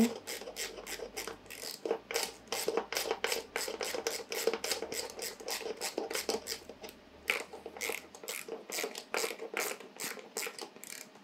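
Ratchet wrench clicking in rapid, even strokes as a bolt, most likely an ignition coil's hold-down bolt, is tightened on a Nissan VQ35DE V6.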